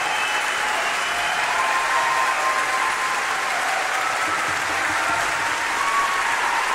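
A crowd applauding steadily, the clapping sustained without a break.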